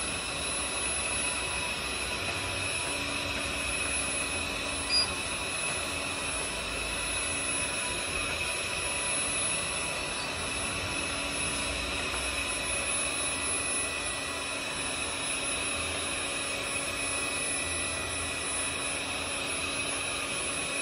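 Hobot window-cleaning robot's suction fan running with a steady whine of several high tones while the robot holds onto and crawls across a glass pane. A short click about five seconds in.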